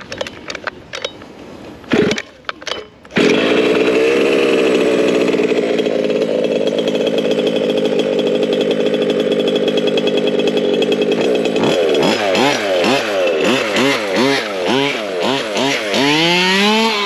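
ESP 30.5cc two-stroke engine in a Losi 5ive-T 2.0 RC truck, being run in. It coughs briefly, catches about three seconds in and runs steadily, then from about twelve seconds its revs rise and fall again and again as the throttle is blipped.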